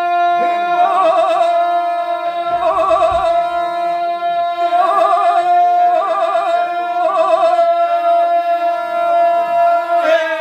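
Ganga, traditional unaccompanied group singing: voices hold one loud, steady note while a voice breaks into a rapid shaking warble every second or two. Near the end the pitch slides steeply down as the song closes.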